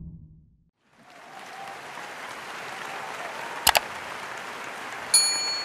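Audience applause fades in after a moment of silence and runs steadily. About three and a half seconds in comes a sharp double mouse click, and near the end a bright bell ding: the sound effects of a subscribe-button animation.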